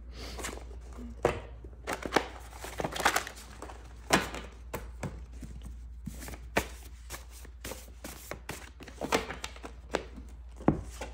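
A deck of tarot cards being shuffled and handled: irregular soft taps, flicks and clicks of the cards.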